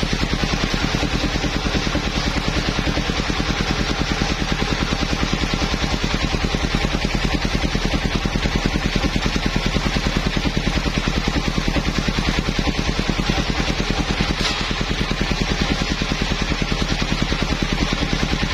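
Engine of a mobile circular sawmill running steadily with a fast, even pulse, dipping briefly about three quarters of the way through.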